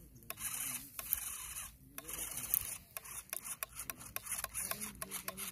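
A small radio-controlled toy tractor drives over loose gravel in stop-start spurts. Pebbles crunch and click under its tyres as it goes.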